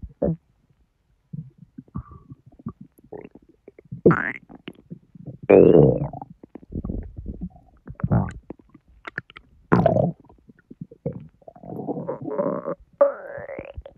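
Intestinal gurgling and rumbling from a bloated belly digesting a large junk-food meal: irregular gurgles and bubbling squelches, loudest about four and six seconds in, with a few squeaky rising whines, one near the end.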